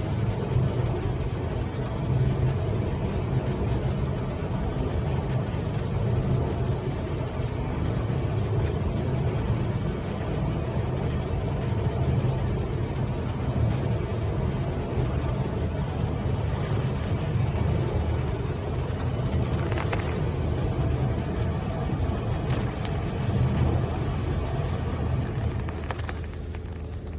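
Semi-automatic pallet stretch-wrapping machine running with a steady low hum, a few faint clicks in the second half, dying down near the end.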